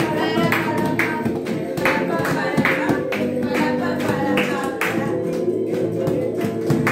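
Peruvian song played on a nylon-string acoustic guitar and a cajón, with hands clapping on the beat about twice a second and voices singing.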